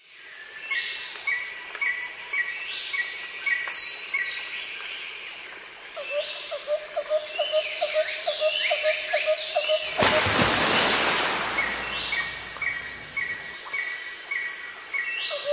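Several birds calling: repeated short chirps and downward-sliding whistles, with a quick run of lower notes from about six seconds in. About ten seconds in, a loud burst of rushing noise covers them for a couple of seconds.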